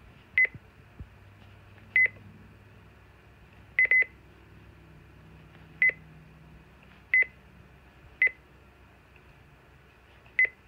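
Midland WR-300 weather radio giving short key-press beeps as its arrow buttons are pressed to step through the setup menu. Eight quick beeps at the same pitch, unevenly spaced, two of them in quick succession about four seconds in.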